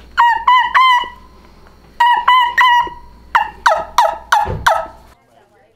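Wingbone-style suction turkey call blown by mouth. It gives two runs of three whistled kee-kee notes, the last note of the second run held longer, then five quick yelps that slide down in pitch: a young lost turkey's call, used in fall hunting.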